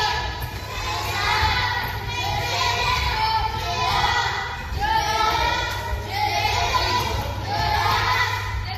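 A group of children calling out together in unison, in short shouts that repeat about once a second.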